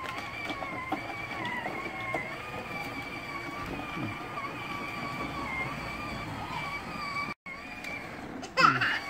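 Electric motor and gearbox of a battery-powered toy ride-on quad whining steadily as it drives over grass, the pitch wavering slightly with load. Near the end a brief loud cry with falling pitch cuts in over it.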